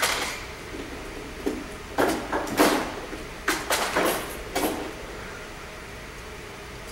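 Several short scraping, clattering noises, one at the start and then a cluster of four or five between about two and five seconds in: someone rummaging at a workbench for a hand tool.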